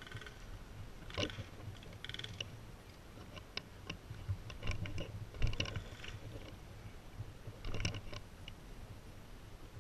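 Irregular clicks and knocks over a low rumble, like handling and movement noise from the airsoft gun and the player's gear.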